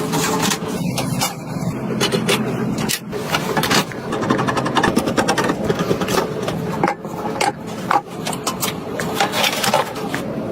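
Irregular clicks and knocks of computer parts being handled and fitted during a PC build, over a steady low hum.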